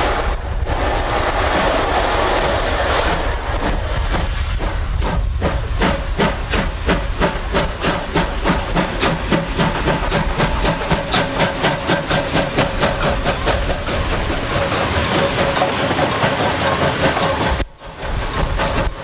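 Ty45 2-8-2 steam locomotive pulling away with a passenger train: a hiss of steam from its open cylinder drain cocks, then a rhythmic beat that speeds up as the train gathers pace past the camera.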